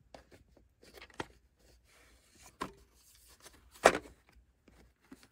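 Handling noise from a VHS tape in its cardboard sleeve being turned over in the hand: scattered soft clicks and rustles, with one sharper knock about four seconds in.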